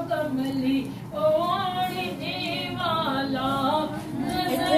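Women singing together unaccompanied, a devotional naat recitation at a milad, with long held, gently wavering notes.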